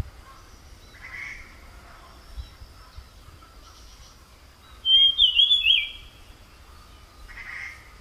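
A tledekan, a small brown forest songbird, sings one short, loud phrase of quick sharp notes stepping down in pitch about five seconds in. Softer single chirps come near the start and near the end, over a faint steady high background tone.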